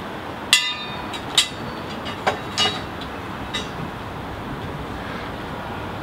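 About five sharp metal-on-metal clinks, each ringing briefly, over the first four seconds, the first one the loudest, over a steady rushing noise.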